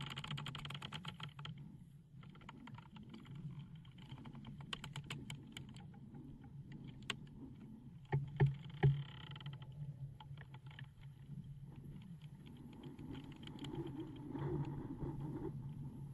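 Film sound design: a low steady drone with irregular clicking and crackling over it, and two louder knocks about eight and a half and nine seconds in.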